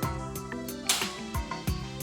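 Background music with a steady beat: sustained pitched notes over kick drum and regular percussion hits.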